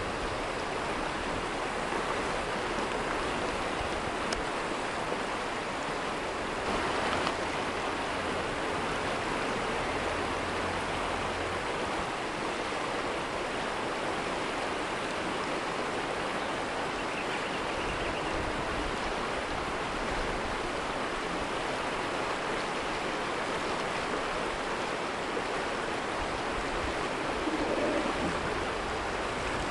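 Fast river water rushing steadily through rapids.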